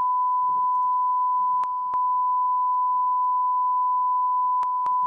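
Continuous censor bleep, a single steady beep tone blanking out swear words. There are faint traces of a voice beneath it and small clicks in the tone twice around two seconds in and twice near the end.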